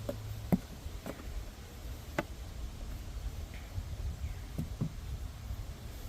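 Scattered knocks and clicks of wooden hive frames and a hive tool being handled during a beehive inspection, about six in all, the loudest about half a second in, over a low steady rumble.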